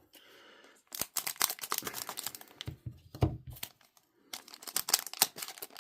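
Foil trading-card pack wrappers crinkling and rustling as packs and cards are handled, in two dense runs of crackles with a single heavier knock between them.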